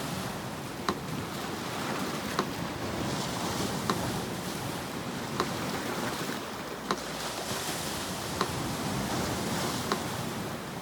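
Sea surf washing in gentle swells, with a metronome ticking slowly and evenly over it, one tick about every one and a half seconds.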